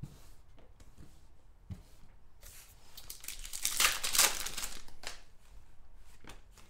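A foil trading-card pack torn open and its wrapper crinkled by hand, a loud rustling tear about four seconds in, after a few light clicks of cards being handled.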